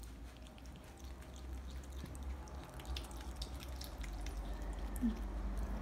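Capuchin monkey chewing a chicken drumstick: soft, wet mouth clicks and smacks scattered through, over a low steady hum.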